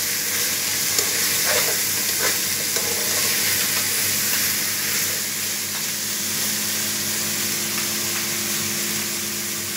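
Steady sizzle of chopped vegetables sautéing in a pot over a medium-high gas flame, with fish frying in a pan alongside, as a metal spoon stirs the vegetables with a few light scrapes in the first couple of seconds.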